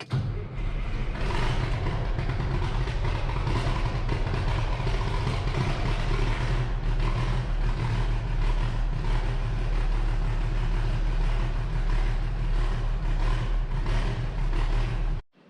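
Steiger four-wheel-drive tractor's diesel engine running steadily at a constant speed, circulating fresh oil to fill the oil filters after an oil change.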